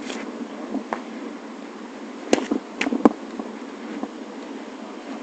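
Sparring swords clacking together: a light knock about a second in, then three sharper clacks between two and three seconds in, over a steady background hiss.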